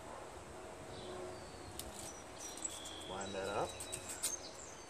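Small birds chirping, with short high chirps and clicks clustered in the second half and a brief lower call at about three seconds.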